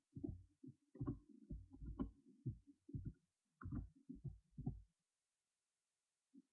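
A run of irregular muffled thumps and bumps, stopping about five seconds in.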